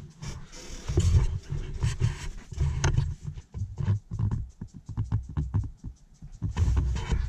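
Irregular low rumble buffeting the camera's microphone in gusts, with a few light clicks and knocks.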